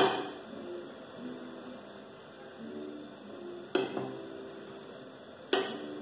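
A kitchen knife cutting a slice from a mousse cake, its blade clinking against the ceramic serving plate three times: once at the start, then about three and a half seconds and five and a half seconds in.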